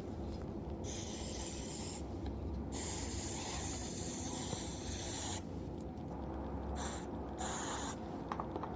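Aerosol can of electronics cleaning spray hissing onto a RAM module in bursts: one of about a second, a longer one of nearly three seconds, then two short ones near the end, over a steady low rumble.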